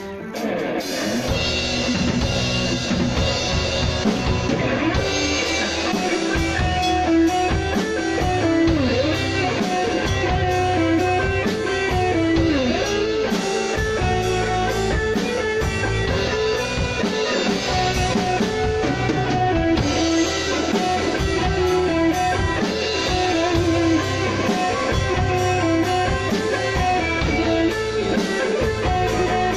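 Live band playing a reggae groove: electric guitar, bass guitar, drum kit and electronic keyboard, with a wandering melodic lead line over a steady beat. The full band comes in about a second in.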